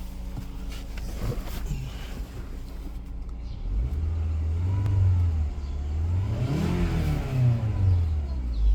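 2010 Toyota Camry four-cylinder engine idling, then revved up twice, its pitch climbing and falling back each time. The engine is misfiring on cylinder 3, which the mechanic puts down to a worn spark plug.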